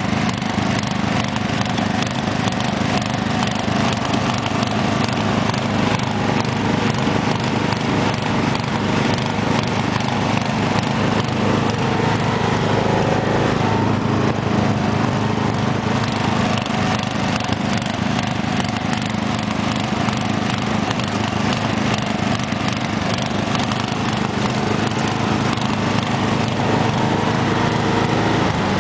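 Two Sears Craftsman lawn tractor engines running steadily at once: a 12 hp Tecumseh OHV and an 11 hp Briggs & Stratton, their sounds blending into one even, unchanging drone.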